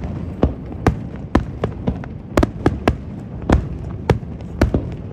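Aerial firework shells going off in quick succession: a string of sharp bangs at irregular intervals, about two a second, over a steady background rumble.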